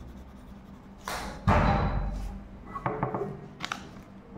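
Short burst of percussive music or sound effect: a sudden hit with a deep thud about a second and a half in that fades over about a second, then a few lighter knocks near the end.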